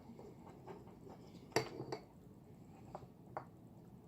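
Faint clicks and taps of small lightsaber parts being handled while a circuit board is pried off the battery pack. The loudest click comes about a second and a half in, with a few lighter ones after it.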